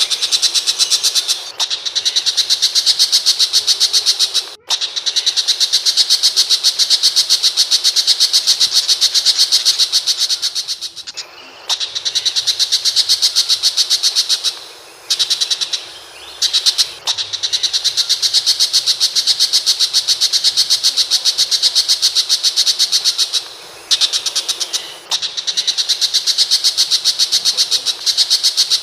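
Tiger shrike singing: a loud, fast chatter of rapidly repeated high notes in long runs of several seconds, broken by short pauses.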